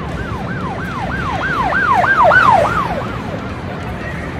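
Electronic siren sound effect from a kiddie ride: about ten quick yelps, each jumping up and sliding down in pitch, about three a second, growing louder toward the middle and stopping a little over three seconds in.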